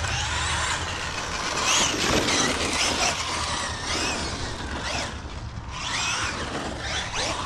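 Traxxas Maxx Slash RC short course truck running on a 6S battery: its electric motor and drivetrain whine, rising and falling in pitch again and again as the throttle is worked over the jumps.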